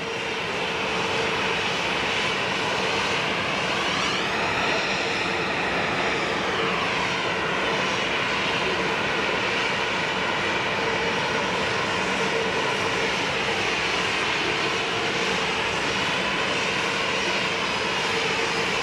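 Boeing 737-800's CFM56-7B turbofan engine running steadily, a jet whine with a held hum. A high tone rises and falls back about four to seven seconds in.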